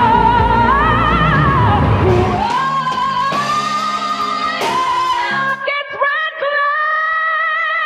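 Female vocalist belting sustained high E-flat (Eb5) notes with a wide vibrato, in live concert recordings spliced back to back. A band plays under the first clips, and after the last splice, about five seconds in, the held note is left almost alone.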